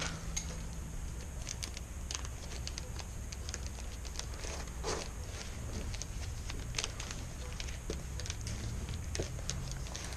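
Wicker rods being woven by hand: irregular light crackles, creaks and clicks as the rods are worked through the stakes, over a low steady hum.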